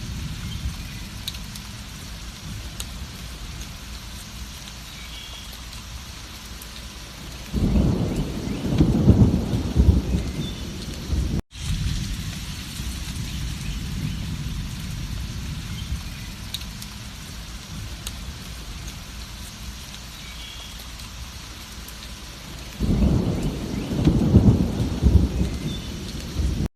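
Steady heavy rain with two long rolls of thunder, one about eight seconds in and one near the end. The audio drops out for an instant about eleven seconds in.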